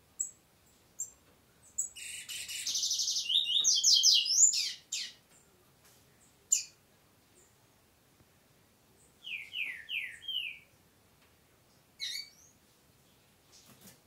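Double-collared seedeater (coleiro) singing in short bursts: a few sharp single chips, a loud fast phrase of high notes a couple of seconds in, and later a run of four quick falling notes and a brief closing call.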